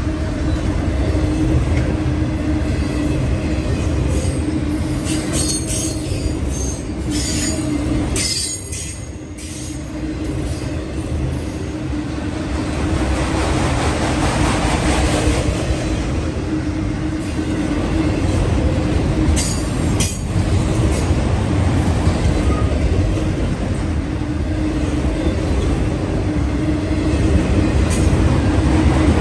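Freight train of autorack cars rolling past: a steady rumble of wheels on rail with a constant hum, and a few brief sharp high-pitched sounds about a quarter of the way in and again about two-thirds through.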